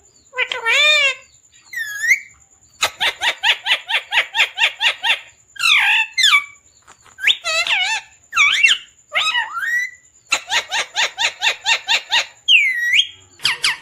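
Parrot calling: loud chirps and squawks that swoop up and down in pitch, with two fast runs of short repeated chirps, about seven a second.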